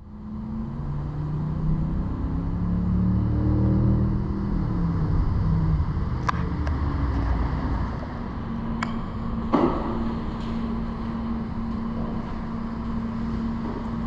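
A motor vehicle's engine running, its pitch shifting up and down for the first several seconds, then settling into a steady hum. A few sharp clicks come in the second half.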